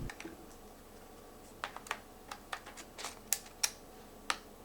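Light, irregular clicks and taps of a DSLR camera and its parts being handled, about a dozen over a few seconds.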